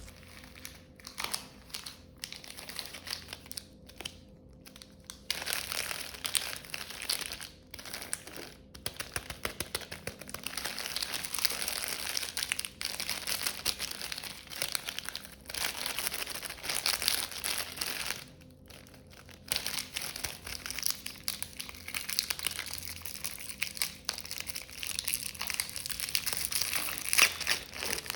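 Wood fire crackling in a fireplace: sharp irregular pops and snaps. They come sparsely for the first few seconds, then build into a dense, steady crackle with one short lull past the middle.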